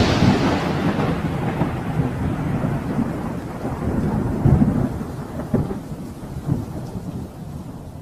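Sound effect for a flaming logo intro: a low, rolling, thunder-like rumble that starts loud right after a blast and fades slowly away, with a few swells around the middle.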